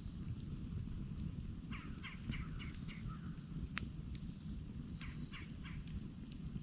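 Campfire burning with a steady low rumble and frequent sharp crackles, one louder pop a little before the middle. A bird calls in the background in a quick run of about six short notes, then three more near the end.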